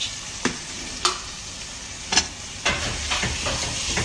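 Raw chicken livers and pieces sizzling in hot fried onion and spices in a granite-coated pot, stirred with a wooden spoon that knocks and scrapes against the pot several times.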